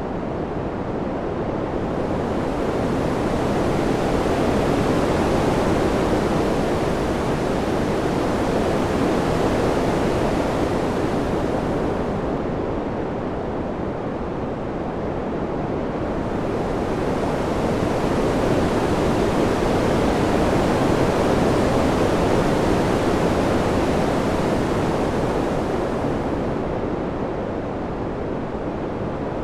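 Steady wind noise, a continuous rushing hiss that swells and eases slowly every several seconds. Its high end thins out twice, about halfway through and near the end.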